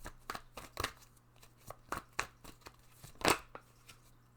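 Tarot cards being handled: a string of irregular light snaps and slaps, the loudest a little after three seconds in.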